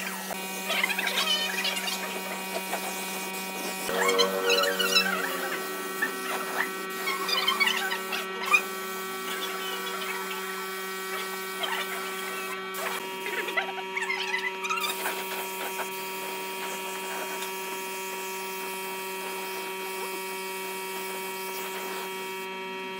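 Steady electric motor hum with a buzzy ladder of overtones, as the chair is sprayed with finish from an air-fed spray gun. Short wavering chirps come and go over it, and the hum cuts off abruptly at the very end.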